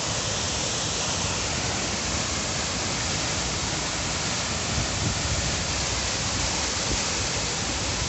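Waterfall pouring into its plunge pool: a steady, even rush of falling water.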